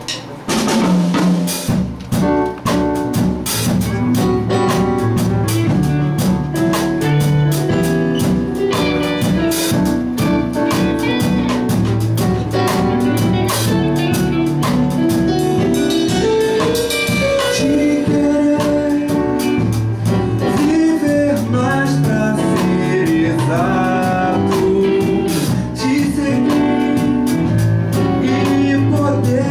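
Small live band playing a song: keyboard, guitar and drum kit, with a man singing into a microphone. After a short, thinner opening, the full band with bass and drums comes in about two seconds in and plays on steadily.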